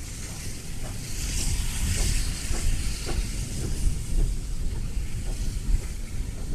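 SY-class steam locomotive working slowly under steam: a heavy low rumble with regular exhaust beats about twice a second. Steam hisses from the open cylinder drain cocks, loudest about a second to three seconds in.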